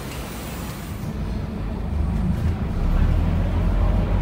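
Scania K230UB city bus's diesel engine heard from inside the cabin: a low rumble that grows steadily louder from about a second in as the bus gets under way.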